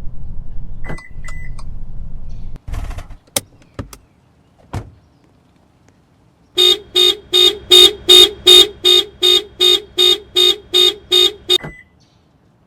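Sound unit of a radio-controlled Subaru Impreza model: a low engine rumble that cuts off, a few sharp clicks, then about fourteen horn honks in quick succession, about three a second, over some five seconds.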